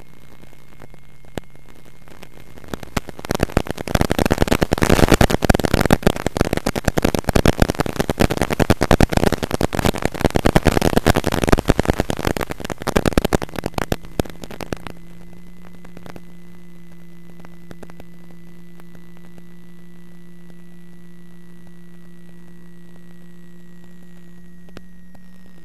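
Loud crackling radio static, a wireless video link from a model plane's onboard camera breaking up as it loses signal, from about three seconds to about fourteen seconds in. Before and after it, a steady low hum.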